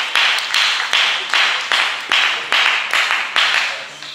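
Hands clapping in a steady rhythm, about two to three claps a second, each clap echoing in a large sports hall. The clapping fades out near the end.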